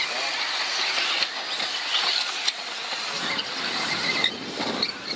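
Radio-controlled off-road model cars running on the track: a steady high whir of motors and tyres with a few short squeaks.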